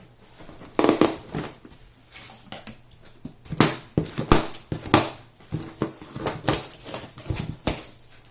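Cardboard boxes and packing being handled during an unboxing: an irregular run of knocks, bumps and short rustles, the loudest a few seconds in.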